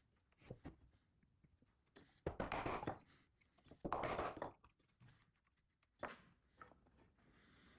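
Light knocks and two short rough noises, each under a second, from the wooden box parts being handled while the latch is glued in place.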